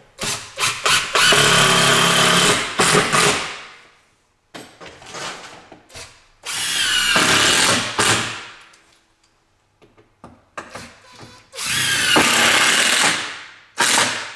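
Makita 18-volt cordless driver running long wood screws into a wall-mounted board. There are three long runs of a few seconds each, with short trigger blips before them.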